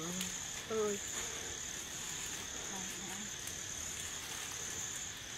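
Insects trilling in a steady high-pitched drone, dipping briefly under a second in.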